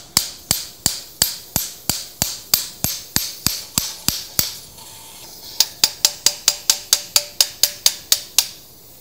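Mallet striking a femoral broach handle, driving the broach into the femoral canal during hip-replacement broaching: a steady run of sharp metallic strikes about three a second, a pause of about a second, then a quicker run of about five a second that stops near the end.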